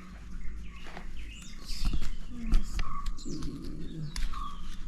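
Small birds chirping in the background, with several sharp clicks and knocks of handling, the loudest about two and a half seconds in.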